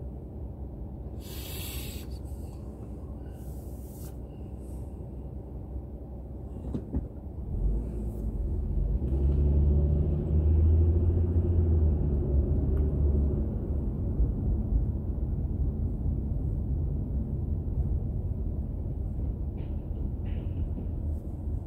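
Low road and engine rumble of a car driving, picked up by a dash camera inside the cabin. About eight seconds in it swells into a louder rumble with a low hum, then eases slightly.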